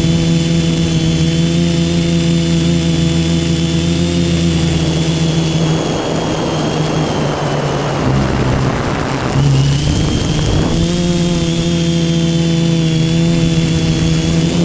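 Multirotor drone's electric motors and propellers, heard from the camera mounted on the craft: a steady hum with several overtones. For several seconds in the middle the steady tone gives way to a rough rushing noise, then the hum returns.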